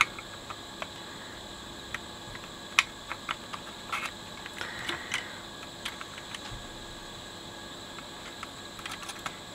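Scattered light clicks and ticks of wires and a soldering iron tip against solder joints on a circuit board as wires are desoldered and pulled free, over a faint steady background hum.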